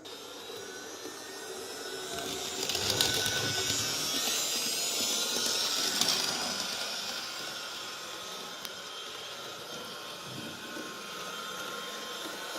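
Motor of a Märklin 37806 model locomotive running with its digital sound turned off: a steady whir with a high whine, starting suddenly, getting louder over the first few seconds and easing off after about six seconds.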